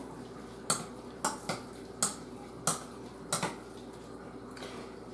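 A spoon clinking and scraping against a metal mixing bowl while stirring chopped salsa, about seven sharp clinks in the first three and a half seconds, then fewer near the end.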